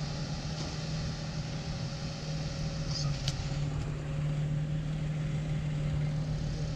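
Off-road vehicle engine running steadily at low speed, a low even hum, with a brief click about three seconds in.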